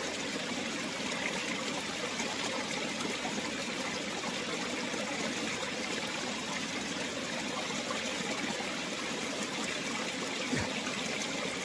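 Steady rushing of a stream or creek running, with a soft thump about ten and a half seconds in.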